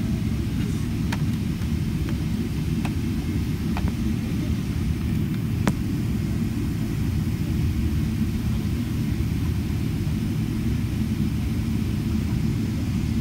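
Steady low rumble of an airliner's engines and airframe heard from inside the passenger cabin as the aircraft taxis on the ground, with a few faint clicks in the first six seconds.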